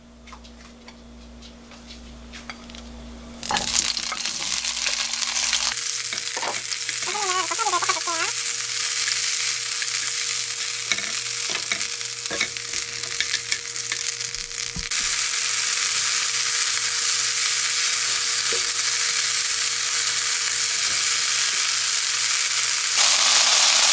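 Soaked bracken (gosari) sizzling in hot sesame and vegetable oil in a nonstick wok as it is stir-fried with chopsticks. Quiet at first, then a loud, steady sizzle starts about three and a half seconds in and keeps going.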